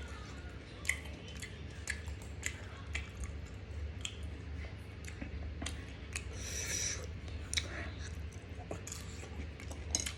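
Close-up chewing of grilled pork intestine barbecue: wet mouth sounds with irregular sharp clicks and crunches, and a brief rustle about two-thirds of the way through.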